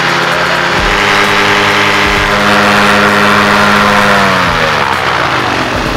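Paramotor engine and propeller running at high throttle, steady, then dropping in pitch as it is throttled back about four and a half seconds in, settling at a lower speed.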